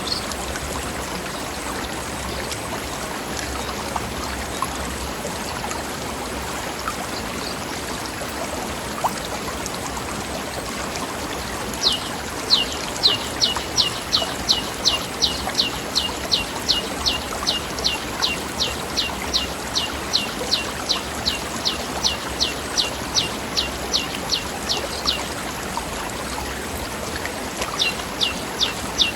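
Forest stream running over rocks, a steady rush of water. About twelve seconds in, a bird starts a long series of quick, high, downward-sweeping notes, about three a second, lasting some thirteen seconds, and begins again near the end.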